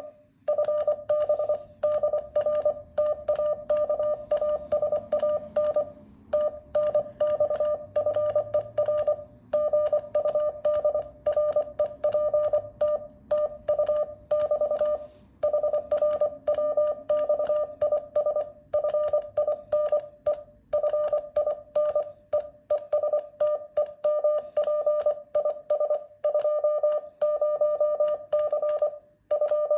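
Morse code sent by hand on an iambic paddle: the transceiver's sidetone, a single steady tone switched rapidly into dits and dahs through the speaker, with short pauses between words and faint paddle clicks on each stroke. It spells out a typical ham radio contact exchange: "BK FB DR TAKA SAN, TNX FER GUD REPT, 20C BT".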